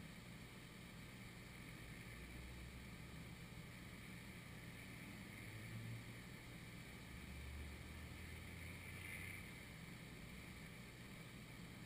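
Faint outdoor background noise: a low steady rumble under a light hiss, swelling slightly about six seconds in and again around eight to nine seconds.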